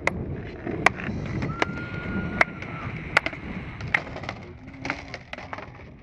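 Skateboards on a concrete skatepark: a low rolling rumble of wheels with sharp clacks of board tails and decks striking the ground, several over the few seconds, fading out near the end. A thin steady tone sounds briefly, about a second and a half in.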